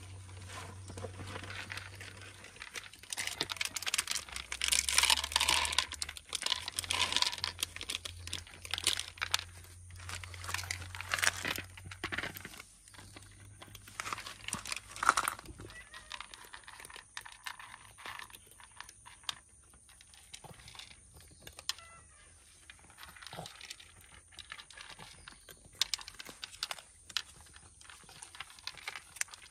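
Stray cats eating dry food: irregular crunching and crinkling, busy for about the first half and sparser after that. A low steady hum runs underneath until about halfway through.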